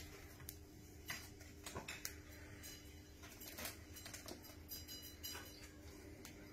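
Faint scattered light taps, scratches and patters of kittens scampering and playing on a fabric playpen floor, over a steady low hum.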